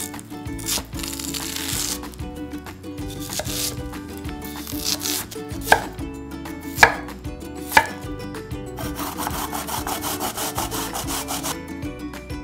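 A kitchen knife slicing through peeled nagaimo (Chinese yam) on a wooden cutting board, with rasping cuts. Three sharp knocks of the blade on the board come about six to eight seconds in.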